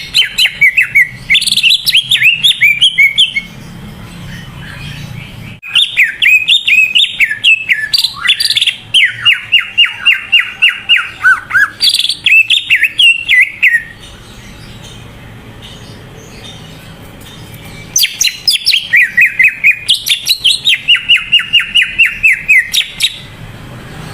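Cucak ijo (green leafbird) singing loudly in three bursts of rapid, repeated whistled and chattering notes, about four a second, each note sliding sharply in pitch. This is the gacor, full-voiced song used to goad other cucak ijo into singing. There are pauses of a few seconds between the bursts.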